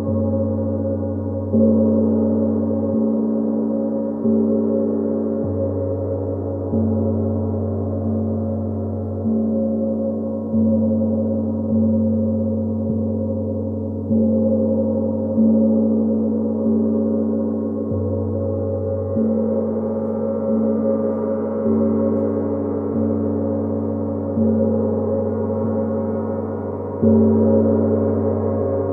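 A gong struck over and over, about once every second and a quarter, its deep ringing tones overlapping and sustaining between strikes.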